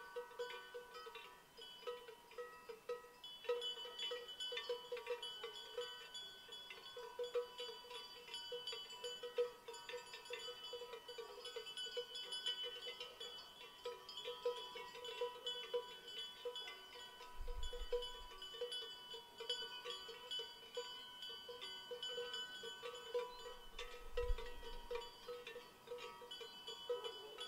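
Many cowbells on a herd of animals clanking and ringing together in a continuous, overlapping jangle. Two brief low rumbles come in, around two-thirds of the way through and again near the end.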